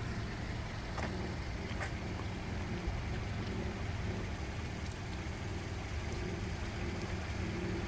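Toyota Corolla's engine running at idle with a steady low hum as the car creeps backward into a parking space, heard from outside the car.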